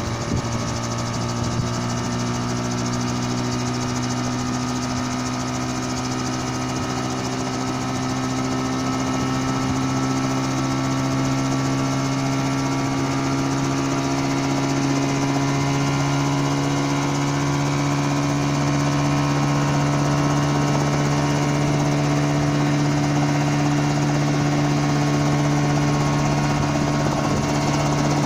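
Engine of a homemade coaxial helicopter running steadily, its pitch and loudness rising slowly as the rotors spin up.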